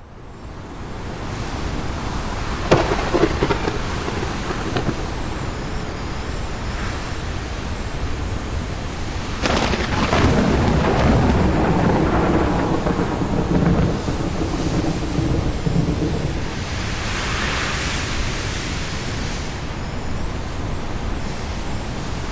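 Wind blowing on a mountaintop, a continuous low rushing noise that fades in at the start and swells in gusts about three seconds in, around ten seconds in and again near eighteen seconds.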